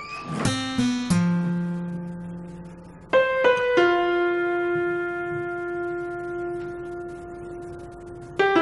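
Background music: slow piano notes, a few struck near the start and a chord around three seconds in that is left to ring.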